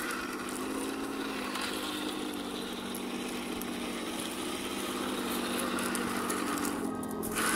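Heng Long 1/16 Tiger I radio-controlled tank running, its sound unit playing a simulated engine hum that shifts slightly in pitch now and then, over the steady noise of the model's motors and tracks.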